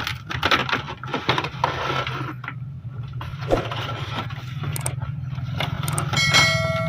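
Toy packaging being handled and opened, with quick scraping, tapping and rustling that is busiest in the first two seconds and then thins out. A steady low hum runs underneath. Near the end a held electronic tone begins.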